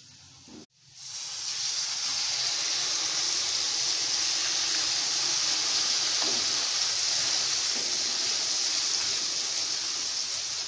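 Hot oil sizzling loudly and steadily as a wet onion, tomato and yogurt paste is poured into fried spices in a wok and stirred. The sizzle starts about a second in.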